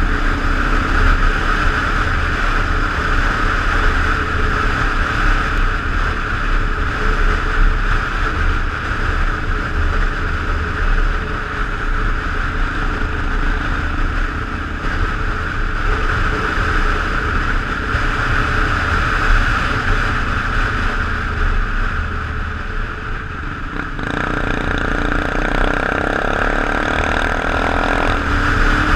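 Single-cylinder dual-sport motorcycle exhaust heard while riding, under steady wind noise on the microphone; the sound changes character near the end.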